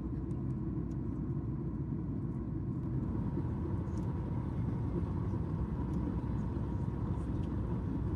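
Steady low rumble of a Boeing 737 MAX 8 in flight, heard from inside the passenger cabin, with a faint steady hum above it.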